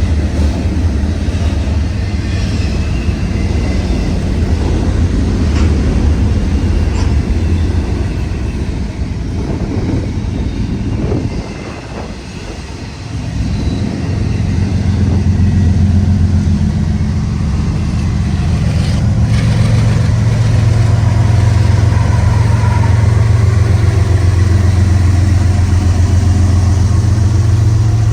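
Diesel locomotive working as a mid-train distributed-power unit on a departing freight train: a steady low engine drone under load, with the train rolling past. The drone dips briefly about halfway, then comes back louder and holds steady.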